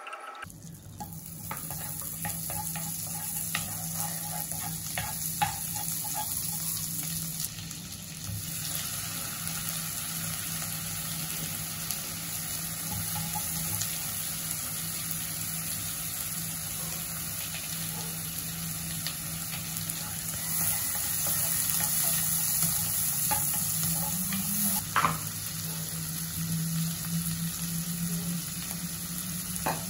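Butter, onion and shrimp sizzling in a non-stick wok, with a wooden spoon stirring and tapping against the pan now and then. The sizzle gets a little louder about two thirds of the way through.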